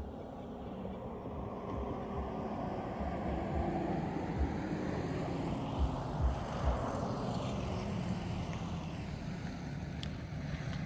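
Electric motor and propeller of a Night Radian RC glider flying past, swelling to its loudest about six seconds in and then fading as it moves away. A few gusts of wind thump on the microphone.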